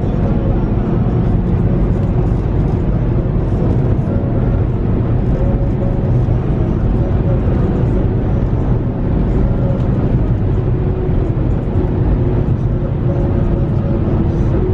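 A vehicle running at a steady speed, giving a loud, even low rumble of engine and road noise with no revving.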